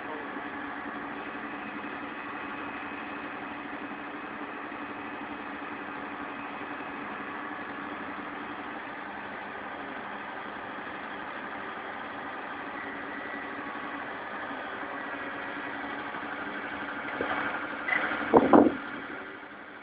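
Putzmeister truck-mounted concrete pump running steadily, its engine and hydraulics giving a constant hum with several held tones while the boom moves. Near the end comes a brief, much louder, uneven noise.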